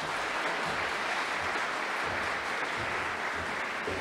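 Audience applauding steadily, a sustained even clapping.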